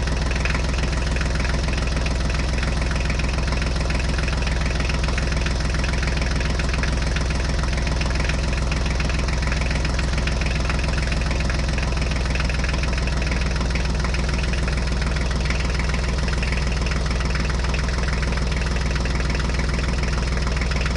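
Vehicle engine idling steadily, an even low hum that neither revs nor changes in pitch: a truck engine sound effect.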